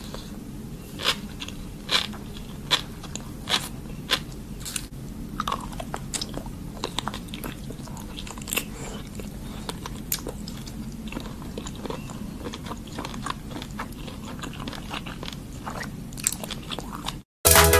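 Close-miked eating of seafood: wet biting and chewing with sharp clicks and crunches, spaced less than a second apart at first and then smaller and more frequent, over a steady low hum. The sound cuts out near the end.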